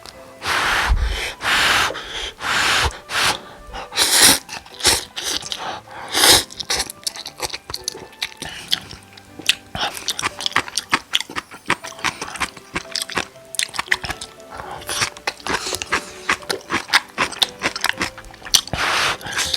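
Close-miked slurping of cup noodles, in several long swishes, and wet chewing with rapid small clicks through the middle, over faint background music.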